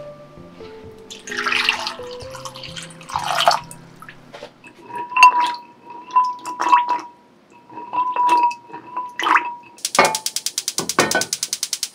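Water sloshing and splashing in a glass bowl as a hand swirls and rubs cylinder rice cakes (tteok) to wash them. Near the end, a gas stove's igniter clicks rapidly, about ten clicks a second, to light the burner.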